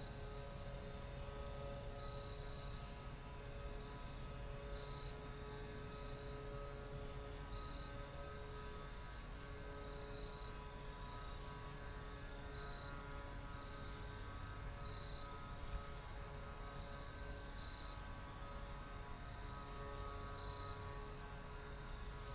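Quiet woodland ambience: a steady low hum with several faint held tones, and a faint high chirp repeating about once a second.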